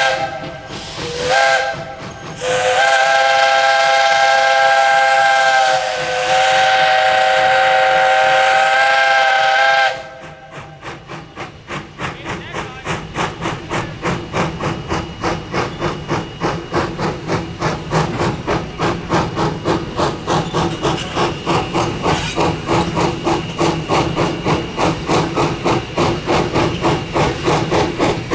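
Steam locomotive whistle, a chord of several notes, sounded in a couple of short toots and then a long blast of several seconds. Then the 0-4-0T saddle-tank engine's exhaust chuffs start up fast and even, growing louder and quicker: the driving wheels slipping on the grade as the engine struggles to get moving.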